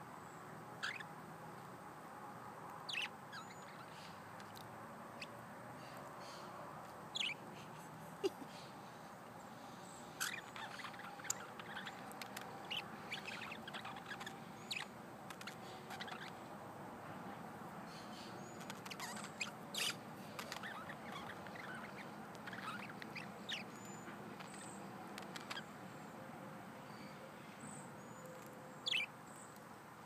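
Budgerigars chirping in short, scattered calls, busiest in the middle stretch.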